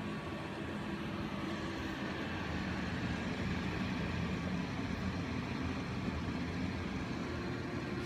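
Small white long-haired dog breathing noisily through its nose, a continuous low, rough snore, a little louder from about three seconds in. The owner takes it for a breathing problem.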